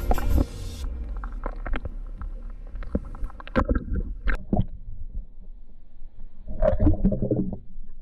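Knocks and low rumbling on a fishing kayak, the sound of water against the hull and handling on board. Scattered knocks and clicks run throughout, and a louder stretch of rumbling comes near the end.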